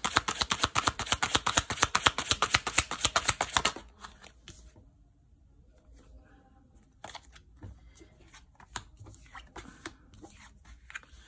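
Tarot deck shuffled in the hands: a fast, even run of card slaps and riffles that stops about four seconds in. Then a few soft taps and slides as cards are turned over and laid on the table.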